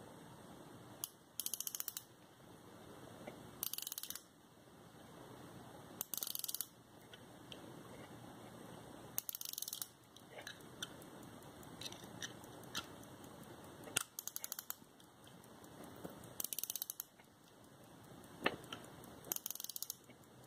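Click and ratchet of a circa-1865 key-wind pocket watch, ticking off in short rapid trains as the key is turned to wind the mainspring. There are about seven such bursts a couple of seconds apart, with a few single clicks between them.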